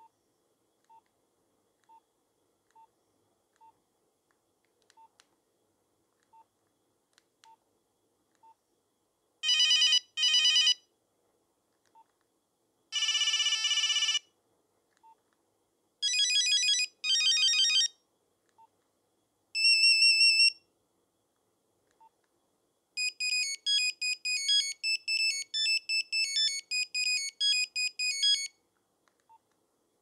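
Nokia 3210 mobile phone: short single keypad beeps about once a second as its menu is scrolled, then a series of short previews of its built-in monophonic ringtones, each playing for a second or two as the next one in the list is highlighted. Near the end comes a longer, quick beeping melody.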